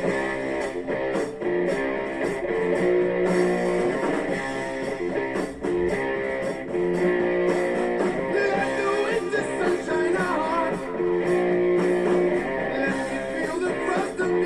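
Guitar-led music.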